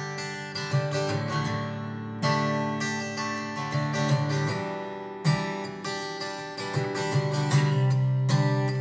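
Acoustic guitar strumming chords as the instrumental intro of a country song, before the vocals come in.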